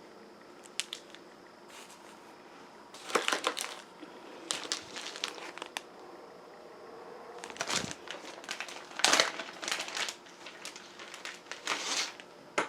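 Packaging crinkling and rustling in several irregular bursts as small fountain parts are handled and unwrapped.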